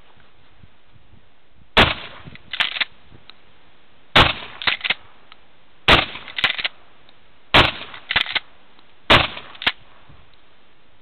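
Winchester 1897 pump-action shotgun firing buckshot hand loads: five shots about two seconds apart. After each shot comes a pair of quick metallic clacks as the slide is worked to chamber the next shell.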